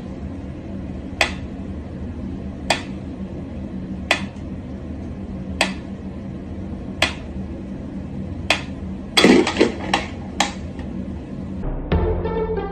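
Water dripping at an even pace, one sharp drip about every second and a half, over a steady low hum. A short clatter about nine seconds in, and music comes in near the end.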